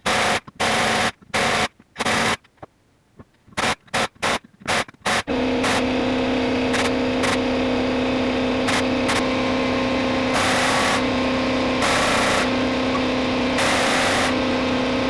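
Impact gun run in short bursts, a little at a time, winding in jacking bolts to separate a backhoe swing cylinder's parts. About five seconds in, a steady hum with a low tone starts and runs on, with a few more louder bursts over it.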